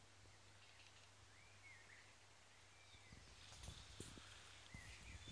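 Quiet garden ambience with a few faint bird chirps. In the second half come soft low thumps of footsteps on grass.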